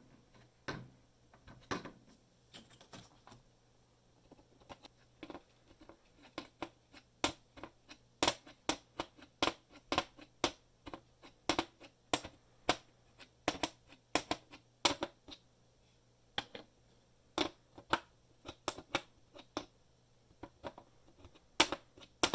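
Sharp plastic clicks and taps, irregular at one to three a second, from a steel socket and the plastic clips being handled and fitted on a plastic socket rail organizer.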